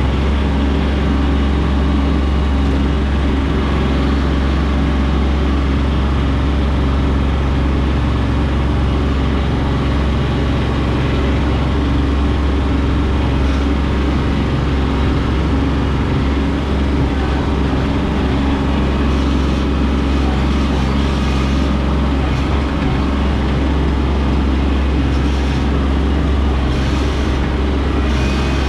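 Kubota B2301 compact tractor's three-cylinder diesel engine running steadily while leveling ground.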